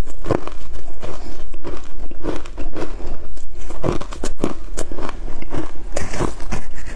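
Frozen matcha ice being crunched and chewed close to the microphone: a dense, irregular run of sharp cracks and crackles as the ice breaks between the teeth.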